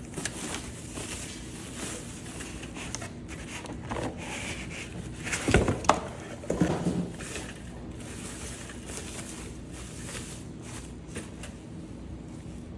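Plastic wrapping rustling and crinkling as a toaster is handled and lifted out of its cardboard box, with a few louder knocks and bumps about halfway through.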